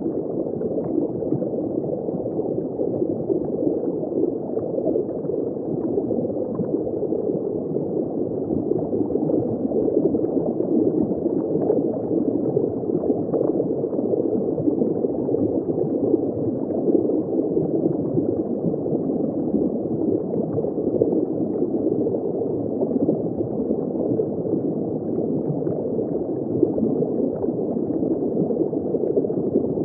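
Underwater ambience heard from just below a shallow surface: a steady, muffled bubbling and gurgling of moving water with constant small crackles, all low and dull with no high sound.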